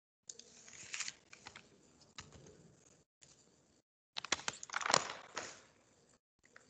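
Irregular clicks and rustling picked up by an online-call microphone, cutting in and out, with a louder cluster of sharp clicks about four to five seconds in.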